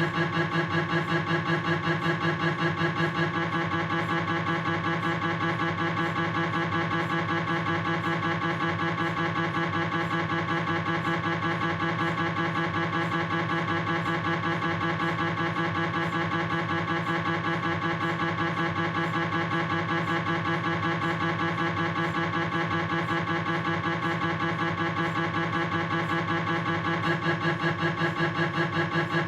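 Philips 1.5 T MRI scanner's gradient coils sounding a rapid, even, pulsing tone while running a proton-density fat-saturated coronal knee sequence. It is a little louder in the first few seconds and again near the end.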